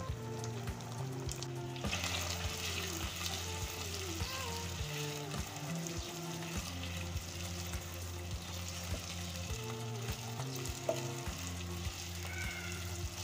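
Potato slices sizzling as they fry in hot oil, stirred with a spatula; the sizzle grows louder about two seconds in. Background music with a steady beat plays under it.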